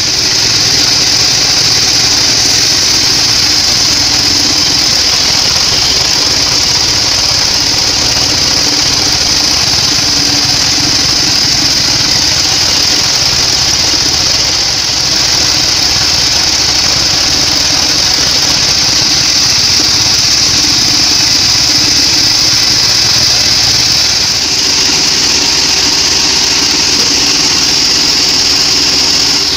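Sawmill log bandsaw running steadily as it saws weru wood: a loud, even high-pitched hiss from the blade over the drone of its motor, dipping slightly twice.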